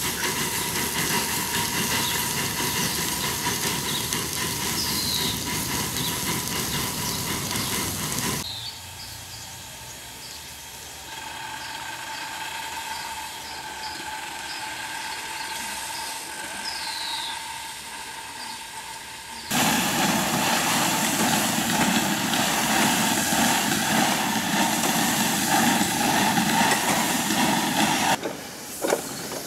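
Steady steam hiss from a small 7¼-inch gauge live-steam locomotive standing with its fire lit, louder at the start and end and softer through the middle.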